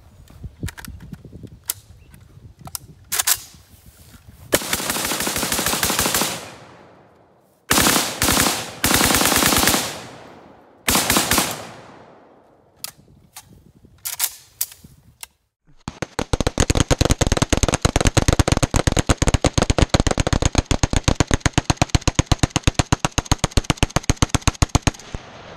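Polish Hellpup AK pistol in 7.62x39 fired rapidly: a few single shots, then several quick strings of shots, and from about halfway a long unbroken mag dump of evenly spaced shots lasting about nine seconds.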